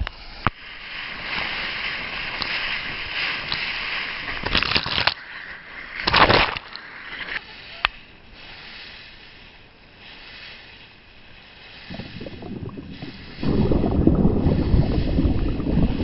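Water sloshing and rushing against an action camera, with wind on its microphone; a few short louder surges near the middle, and a much louder, deeper rushing that starts about three seconds before the end.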